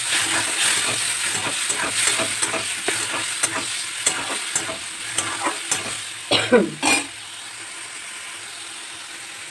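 Onions, ginger, cumin, tomato and chilli sizzling in hot oil in a pan while a spatula scrapes and stirs them, as the spice paste is fried. The stirring ends with a couple of louder scrapes about seven seconds in, leaving a steady, quieter sizzle.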